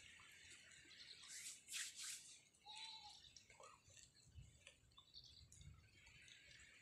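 Near silence: faint outdoor background hiss with a few soft rustles and, about three seconds in, one brief faint high note.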